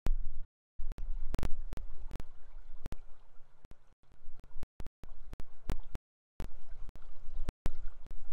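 Wind buffeting an outdoor webcam microphone, a rough low rumble in uneven gusts over a faint wash of water, cutting out to silence several times.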